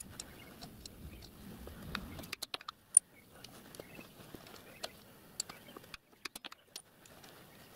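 Small clicks and clinks of steel letter punches being handled and set into a wooden guide block, with one sharp metallic click about three seconds in.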